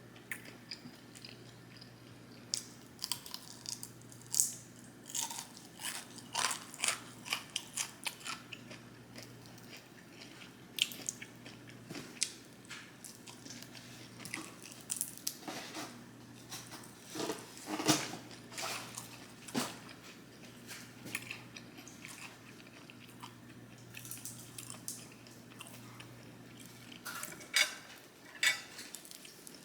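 Close-up chewing and crunching of food by one person, with irregular crisp crackles and mouth clicks that come in clusters and then pause, over a faint steady low hum.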